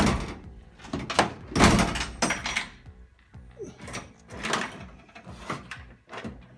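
Repeated metallic clunks and knocks from a Dodge Challenger door handle and latch mechanism as the new handle and lock are worked. Music plays underneath.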